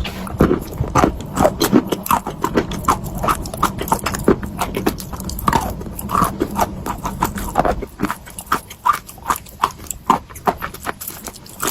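Chalk being bitten and chewed, a rapid run of sharp crunches and clicks from the mouth.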